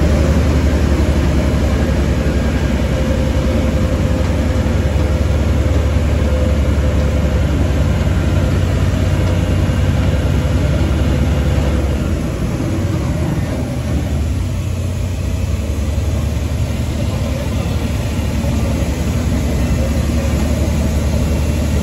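Liebherr mobile crane's diesel engine running with a strong low hum, driving the raised wheels through a freshly fitted remanufactured ZF 6 WG 260 powershift gearbox on a test run. About halfway through the low hum drops and the engine note changes.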